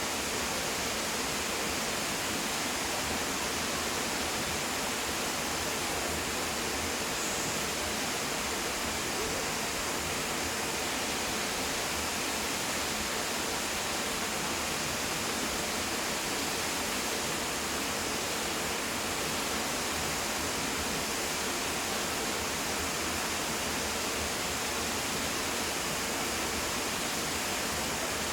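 Steady rushing roar of a large waterfall, an even hiss that doesn't change.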